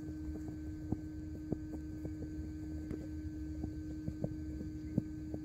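A steady hum on one low tone, with a dozen faint, irregular knocks scattered across it.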